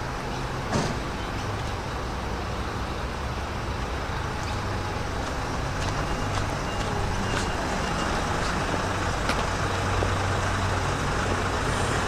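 Steady rumble of a vehicle engine and road traffic, with one sharp click about a second in.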